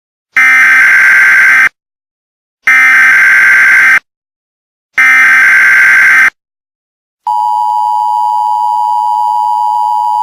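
Emergency Alert System tones: three bursts of the SAME header's digital data, each a harsh buzz of a little over a second, then the steady two-tone attention signal starting about seven seconds in. Together they mark the start of a new emergency alert message.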